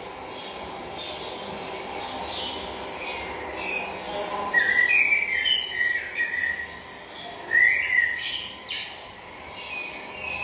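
Several forest birds singing and chirping together over a steady background hiss, with short whistled phrases; the loudest bursts of song come around the middle.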